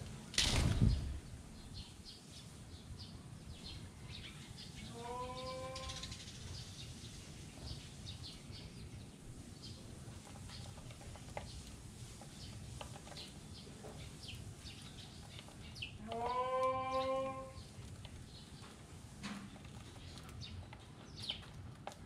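Eurasian tree sparrows feeding, with many short high chirps throughout. A brief loud rush of noise about half a second in, and a lower, drawn-out call from another animal heard twice, once about five seconds in and again near sixteen seconds.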